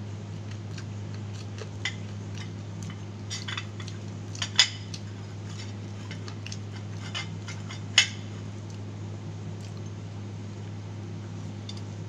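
Plate and utensils clinking as fried chicken is handled and eaten, with a few sharp clinks, the loudest about four and a half and eight seconds in. Fainter clicks of chewing fall between them, over a steady low hum.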